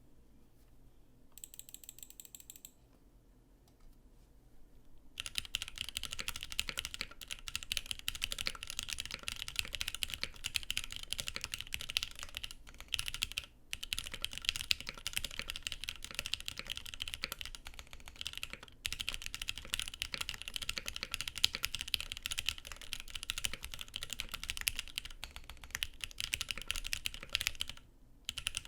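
Fast, continuous typing on a mechanical keyboard fitted with stock, unlubricated Gateron Milky Yellow Pro linear switches in an aluminium plate, starting about five seconds in. The stock switches sound somewhat high-pitched.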